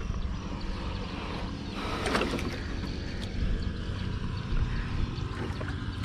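Low rumble of wind buffeting the microphone out on open water, with scattered small clicks and a brief louder rush of noise about two seconds in.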